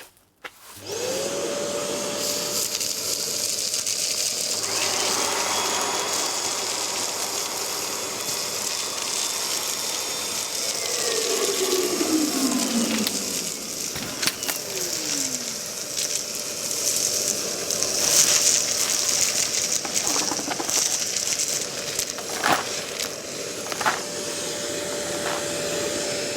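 A Kärcher WD wet-and-dry vacuum's motor spins up about a second in and then runs with a steady whine and rushing airflow while it sucks up dust, shingle and stones. A few sharp clicks and clatters come from debris going up the hose.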